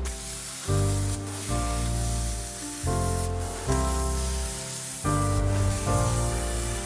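Background music with a slow bass line and changing chords, over the steady hiss of an angle grinder cutting a steel angle profile.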